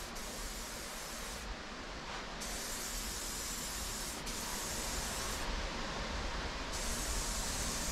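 Aerosol spray paint can hissing steadily as paint is sprayed onto a bicycle frame. The hiss dulls twice for about a second, around two seconds in and again near six seconds.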